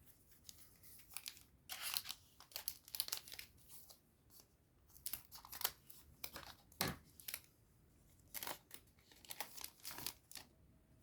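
A Digimon Card Game booster pack wrapper being torn open and crinkled by hand, in two spells of irregular crackling.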